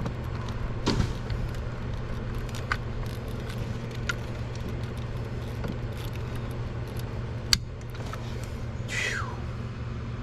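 A socket and hand tools clinking lightly as a stubborn bolt is turned by hand, with scattered small clicks and one sharp click about halfway through, over a steady low hum. A short falling squeak comes near the end.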